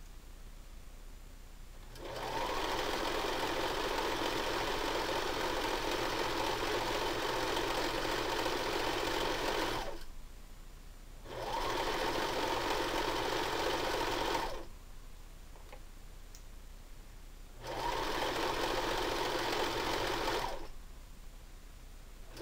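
Singer electric sewing machine running a straight stitch along a fabric hem. It stops and starts in three runs with short pauses between; the first run is about eight seconds long and the next two about three seconds each.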